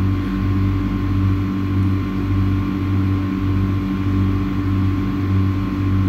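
Loud steady drone of running machinery: a deep hum that pulses about three times every two seconds, with a thin steady whine above it.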